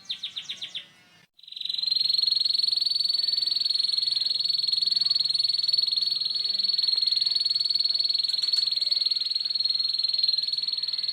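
Canary singing a 'ngeriwik' song: a fast, buzzing trill held at one high pitch. It opens with a few quick separate notes, breaks off briefly about a second in, then resumes and runs on unbroken.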